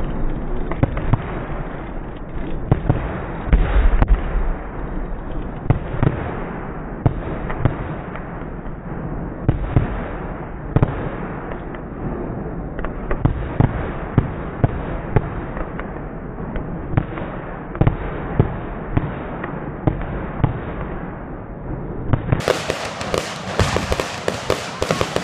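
Aerial fireworks going off one after another: a dense, irregular run of sharp bangs and crackling bursts, several a second, as shells are launched and explode.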